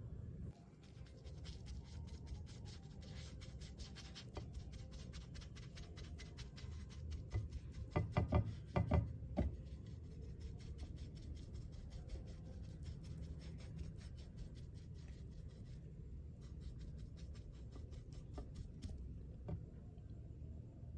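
A paint tool scraping and tapping through thick acrylic paint in a quick run of fine ticks. There is a louder burst of scraping about eight seconds in and a short pause near the three-quarter mark, over a steady low hum.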